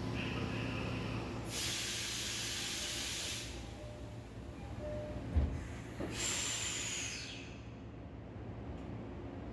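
Subway train car interior: a steady low rumble with two loud bursts of hissing, about a second and a half in and again about six seconds in, and a single dull thump between them.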